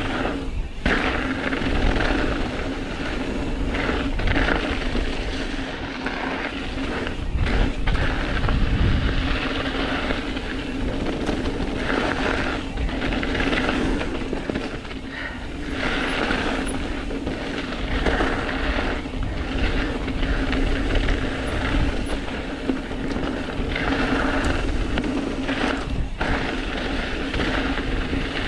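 Mountain bike riding fast down a dirt trail: tyres rolling over packed dirt and loose rock, with the bike knocking and rattling over bumps and wind rumbling on the microphone.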